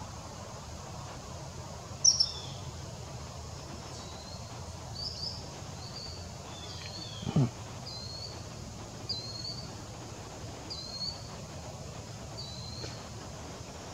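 A bird's short high chirps, repeated roughly once a second from about two seconds in, the first one the loudest, over a steady outdoor background hiss. About seven seconds in, a brief loud sound falls sharply in pitch.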